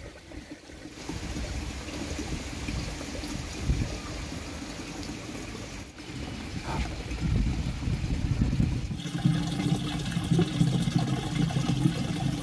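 Water trickling, with a fuller, steadier layer of sound coming in about nine seconds in.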